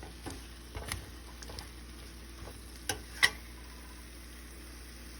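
Bitter melon, okra and shrimp sizzling in a frying pan as they are stirred, with a few sharp clicks of the utensil against the pan.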